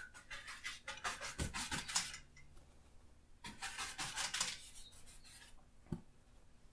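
Wide bristle brush scrubbing oil paint across a stretched canvas in quick short strokes, fluffing up clouds, in two spells of a second or two each.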